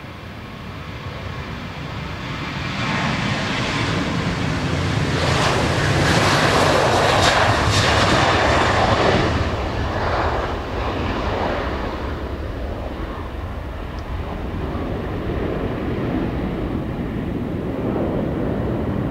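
Boeing 737-900's CFM56-7B turbofans at takeoff thrust during the takeoff roll and climb-out. The jet noise builds over the first few seconds and is loudest about a third of the way in as the aircraft passes. It then eases into a steadier, lower rumble as it climbs away.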